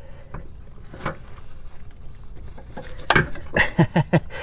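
Old rear shock absorber being wrestled loose from a car's suspension by hand: scattered knocks and clunks of the shock and metal parts, with a quick run of four or five short sharp sounds near the end.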